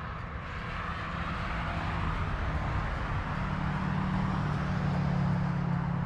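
A motor vehicle passing: a low engine hum and road noise growing louder over about five seconds, then easing off near the end.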